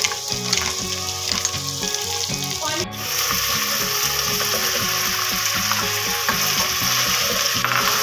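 Potatoes, peas and carrots sizzling in hot oil in a pan, stirred with a wooden spatula. The sizzle becomes louder and steadier about three seconds in. Soft background music plays underneath.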